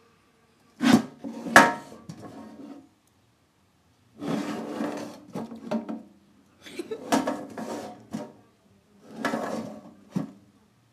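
A large square tin box being handled: two sharp knocks about a second in, then three stretches of rubbing and scraping against it.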